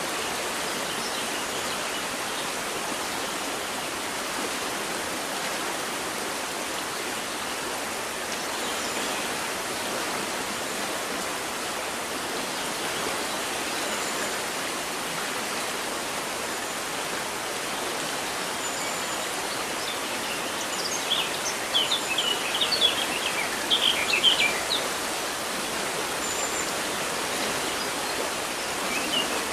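River water rushing steadily. Birds chirp over it in a quick flurry of short high calls about two-thirds of the way through and again at the end.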